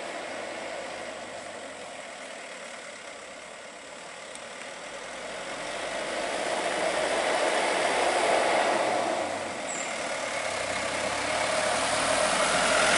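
Toyota Dyna light box truck's diesel engine running as it climbs slowly towards the listener, together with tyre noise on the concrete. It grows steadily louder from about four seconds in, with a brief dip just before ten seconds.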